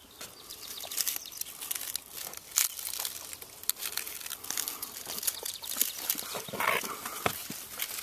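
Irregular crackling and scraping as a hand reaches into a tight crevice between granite boulders, brushing rock and dry debris, with the camera rubbing close against the stone.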